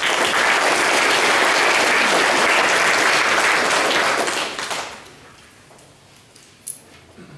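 Audience applauding, starting at once and dying away after about five seconds.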